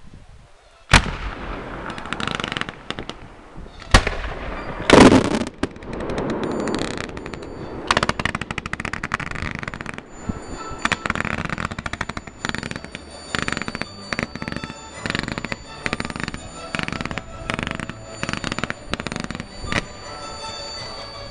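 Fireworks display: a loud shell burst about a second in, heavy bangs around four and five seconds, then a rapid run of sharp bangs and cracks from bursting shells, with music from the show playing under them in the second half.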